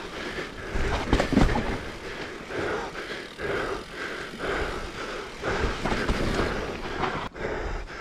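Mountain bike riding a forest trail: tyres rolling over the ground and the bike rattling in uneven surges, with wind rumbling on the microphone.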